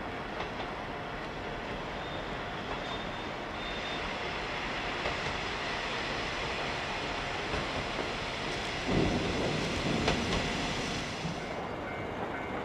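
KiHa 20 diesel railcar passing close by, its diesel engine running and its wheels rolling on the rails. The sound builds from about four seconds in, with a burst of low rumbling and knocks around nine to ten seconds, then fades near the end.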